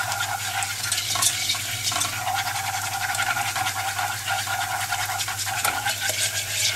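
Wire whisk scraping and swishing steadily around the bottom of a saucepan, stirring a thick butter-and-cornflour roux as it cooks and dries out.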